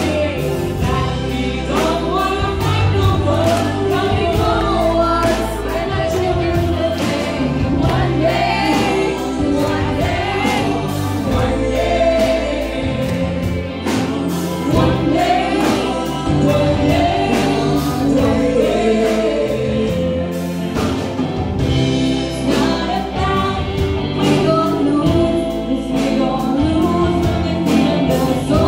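Live band playing a song: a singer over guitar and a drum kit, with a steady beat and heavy bass.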